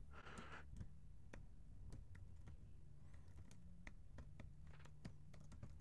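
Faint, irregular keystrokes on a computer keyboard, a few clicks a second, over a low steady hum.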